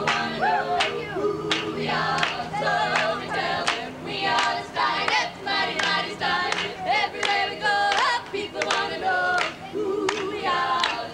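Women's a cappella group singing in close harmony over steady low held notes, with a sharp clap on the beat about twice a second.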